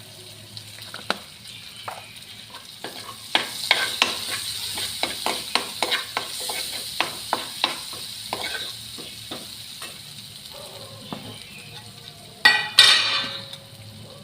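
Spoon stirring spices and ginger-garlic-chilli paste as they fry in mustard oil in a kadhai: a steady sizzle with quick clicks of the spoon against the pan. A louder clatter and sizzle comes near the end.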